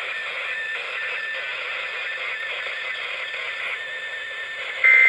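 A NOAA weather radio receiver hissing with static after the broadcast voice ends, with a faint tone coming and going under the hiss. Near the end a short, loud two-tone data burst starts: the first of the SAME end-of-message bursts that close the weekly test.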